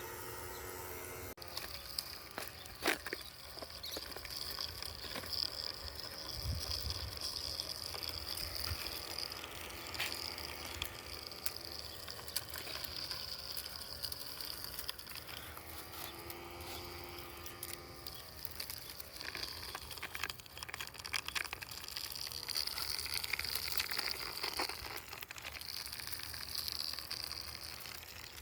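Small robot vacuum running: a high steady motor whine that comes and goes, with irregular crackling and ticking throughout.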